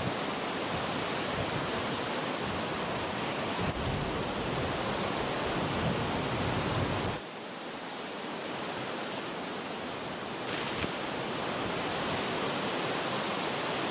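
Steady rushing of river water, an even noise that drops abruptly to a quieter, thinner rush about seven seconds in.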